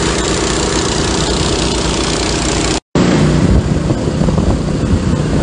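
Engine-driven salvage pump running steadily while dewatering a sunken boat, a constant engine hum under rushing water noise. The sound cuts out completely for a moment a little under three seconds in, then the same steady running resumes.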